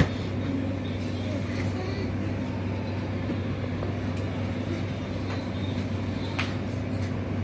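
A steady low hum with a constant tone, unchanging throughout, and two light clicks near the end.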